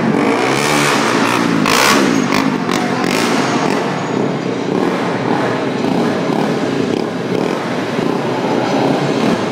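Stunt motorcycle engine revving hard, its pitch rising and falling, while the rider balances the bike on one wheel. A few sharp cracks come about two to three seconds in.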